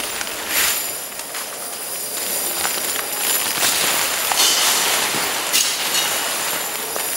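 Handfuls of large steel nails thrown hard against a body armour of strong magnets and scrap metal, clattering and scattering onto the floor in a continuous metallic rain, throw after throw. The clatter is picked up by ceiling microphones and amplified over big loudspeakers.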